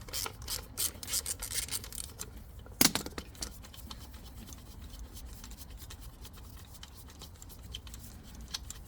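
Hand tools undoing the clutch actuator's mounting screws: a run of small clicks and scrapes, one louder knock about three seconds in, then fewer, quieter ticks.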